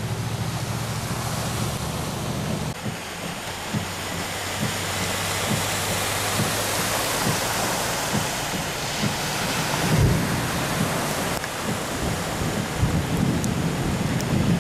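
Heavy rain and vehicles driving through street floodwater, their tyres throwing up spray. A van's engine hums as it passes in the first few seconds, and low thumps and rumbles come through from about the middle on.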